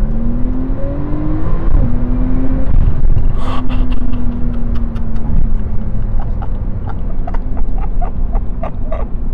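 Porsche 911 Turbo S's 3.8-litre twin-turbo flat-six heard from inside the cabin, pulling hard with its pitch rising. About a second and a half in it shifts up through the PDK gearbox, then runs on at a steadier note that slowly drops as the car eases off.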